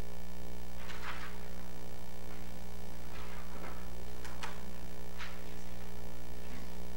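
Steady electrical mains hum on the recording, with several brief, faint noises scattered through it.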